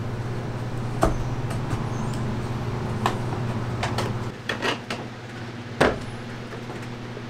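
Wooden beehive frame parts clicking and knocking as they are pressed together by hand and set on a wooden bench, a few sharp knocks with the loudest about a second in and just before six seconds. A steady low hum runs underneath and drops away about four seconds in.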